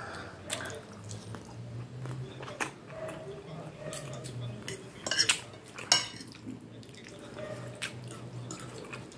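Knife and fork clinking and scraping against a plate while cutting meatballs and pasta: scattered sharp clinks, the loudest cluster about five to six seconds in.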